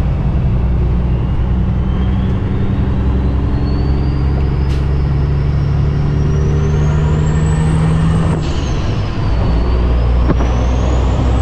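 2008 Kenworth W900L's Cummins ISX diesel pulling hard under acceleration, heard from inside the cab, with a high turbo whistle climbing steadily. About eight seconds in the whistle falls away at a gear change, then climbs again as the engine pulls in the next gear.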